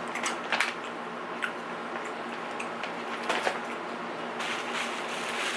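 Items and packaging being handled: a few short rustles and clicks over a steady low background hum.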